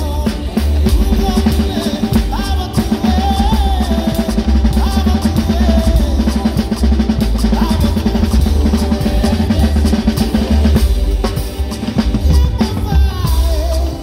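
Acoustic drum kit played with sticks for a sound check: fast, rapid strokes on the snare and toms over a heavy bass drum, the fast run of strokes ending about eleven seconds in.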